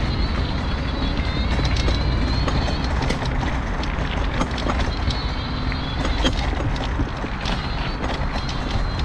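Mobility scooter running along a rough, cracked footpath: a steady rumble with rattles and clicks from the wheels and body over the uneven surface, and a thin high electric-motor whine that comes and goes.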